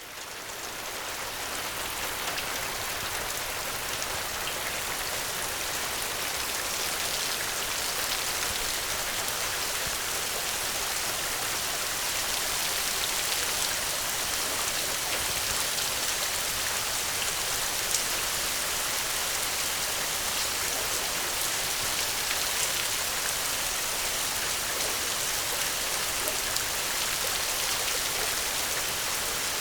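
Steady, heavy rain falling, a dense even hiss with the odd sharper drop-tick. It swells up over the first couple of seconds, then holds steady.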